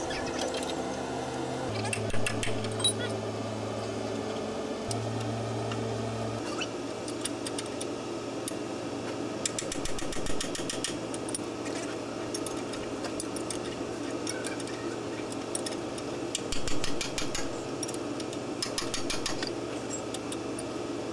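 A steady mechanical hum whose low pitch steps up and down a few times, with several bursts of rapid rattling clicks, the loudest about two thirds of the way through.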